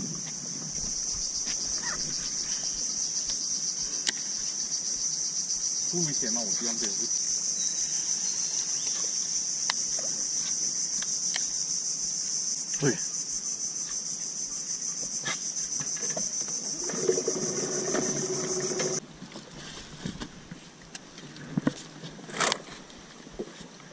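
A steady, high-pitched drone of insects that cuts off suddenly about 19 seconds in. After it, softer water sounds and a few light knocks.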